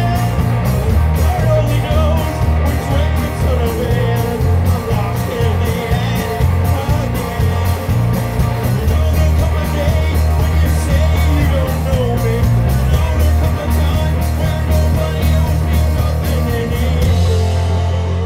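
Live rock band playing: electric guitar, bass and drums with a steady beat, and a man singing over it, most plainly in the first few seconds.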